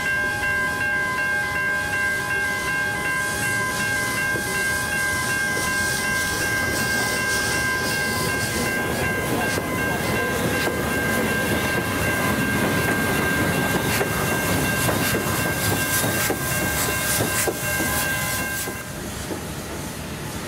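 A train running past on the rails, its rumble swelling toward the middle and later part with repeated wheel clicks over the rail joints. A steady high ringing tone sounds throughout and stops near the end as the sound falls away.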